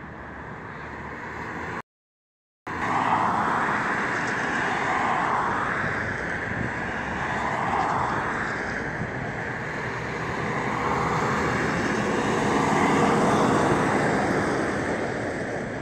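Highway traffic passing close by: vehicles go by one after another with tyre noise swelling and fading every couple of seconds, and a tanker semi-truck rumbles past near the end. The sound drops out completely for under a second about two seconds in.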